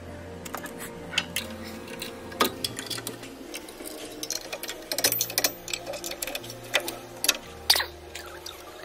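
Irregular metallic clicks and clanks as the front brake caliper of a Ford F350 Super Duty is worked loose and pulled off the rotor and pads, busiest in the second half.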